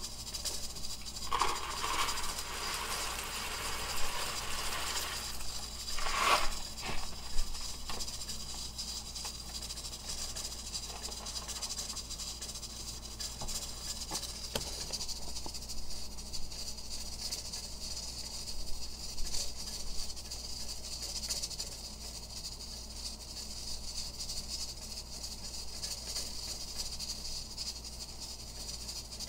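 Steady hiss of pots cooking on a gas stove, with rustling and handling noises in the first several seconds.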